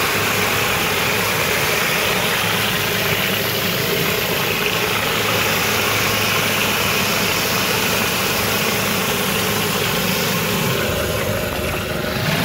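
Hot-water pressure washer running steadily while its surface cleaner sprays near-boiling water over pavers to flush out polymeric joint sand: a steady, dense hiss of spray over the even hum of the machine's engine and pump.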